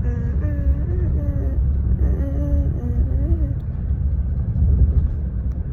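Steady low rumble of a car driving, heard from inside the cabin, with a faint voice over the first few seconds.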